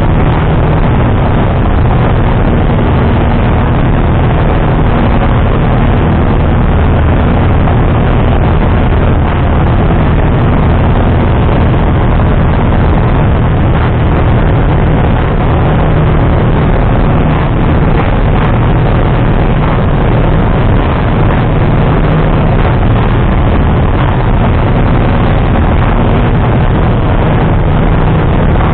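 Steady engine and propeller drone of a single-engine piston light aircraft in flight, heard inside the cockpit.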